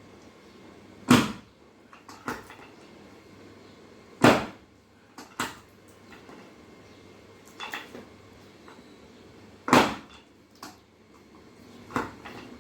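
Sharp knocks and clicks from hands-on chiropractic adjustment work, about eight at irregular intervals, the three loudest about 1, 4 and 10 seconds in.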